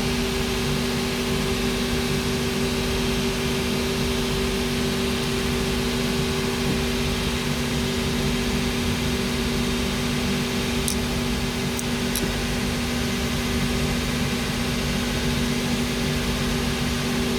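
Workshop machinery running steadily: a constant motor hum with two held tones over a fan-like rush, with a few faint light clicks about two-thirds of the way through.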